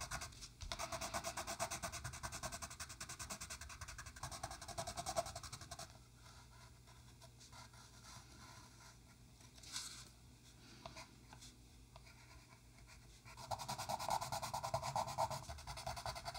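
Inktense colour pencil scratching on paper in rapid short shading strokes. About six seconds in the scratching stops and gives way to a quiet stretch with a few faint taps, then it starts again near the end.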